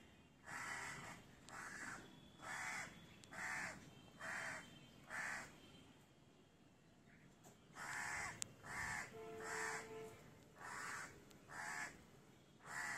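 A crow cawing repeatedly: two runs of short harsh caws, with a pause of about two seconds between them.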